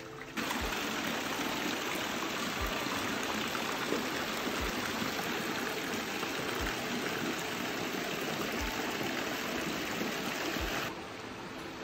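Steady rushing water, cutting in suddenly about half a second in and stopping abruptly about a second before the end. Under it run the low beats of background music, about one every two seconds.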